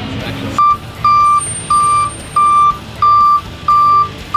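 A flatbed tow truck's back-up alarm beeping. The beeps start about half a second in, each short and at one high pitch, about one and a half a second, with the truck's low engine rumble underneath.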